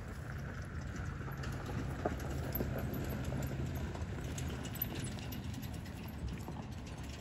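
Goats moving and feeding on dry grass and pine litter: scattered light hoof steps and small clicks and rustles, over a steady low hum.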